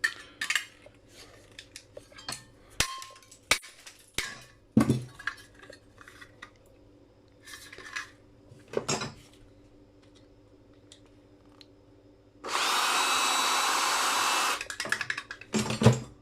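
Metal parts of brass light fittings clinking and knocking as they are handled and taken apart, then a handheld power tool runs steadily for about two seconds near the end.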